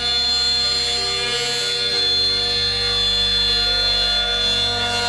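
Slow background music of held chords, changing about two seconds in, over a steady high-pitched whine from the CNC router's spindle as it cuts the pine.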